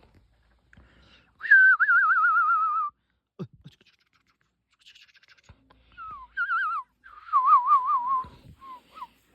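Dog whining and 'talking' in high, wavering tones with a fast quaver: a long falling whine about a second and a half in, then shorter whines and another long one later, as if answering back. A single dull thump comes in between.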